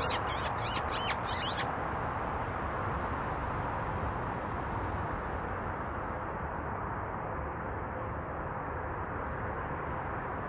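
About five quick, high-pitched squeaks in the first two seconds, a person's squeaking call imitating a distressed mouse to lure a weasel. After that only a steady background hiss.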